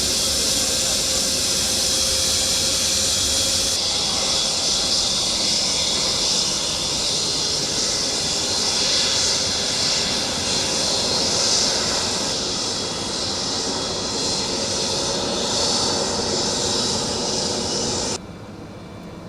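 Engines of an amphibious firefighting aircraft running: a loud, steady hiss with a high-pitched whine. The sound drops off suddenly near the end to a much fainter hiss.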